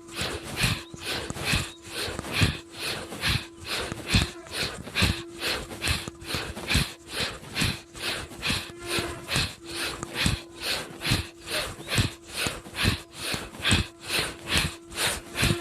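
Bhastrika pranayama: forceful, rapid breathing in and out through the nose in a steady rhythm of about three strokes a second.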